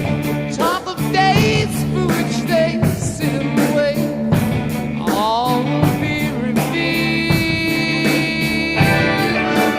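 Rock music with a steady beat, guitar and a singing voice.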